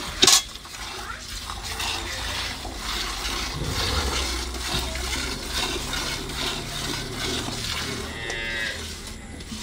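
Cow mooing, one long low call lasting several seconds from about a third of the way in. Underneath it milk squirts into a metal bucket in a steady rhythm of strokes as the cow is milked by hand, with a sharp knock just after the start.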